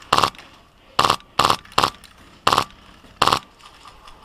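Airsoft gun firing six short bursts, each about a quarter second long, at irregular intervals.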